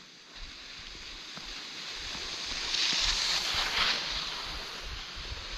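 Skis sliding over packed snow: a hissing scrape that builds from about two seconds in and is loudest around the middle, mixed with wind on the microphone.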